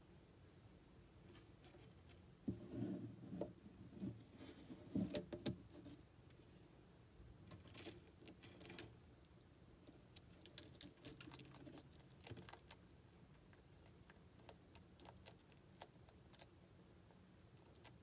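Faint knocks and rustling as a stone dish of chopped salad greens is set down, followed by a scattered run of light, sharp clicks.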